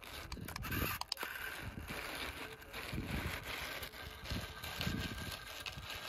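Remote-control model tractor straining under load: its small electric drive whines and its tyres churn and scrape through loose sand as it drags a heavily loaded model trolley.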